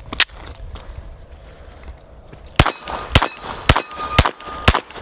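Glock 44 .22 LR pistol firing five quick shots about two a second, starting a little over halfway in, each followed by the ring of steel targets being hit. The pistol cycles each round without a stoppage. A small click comes near the start.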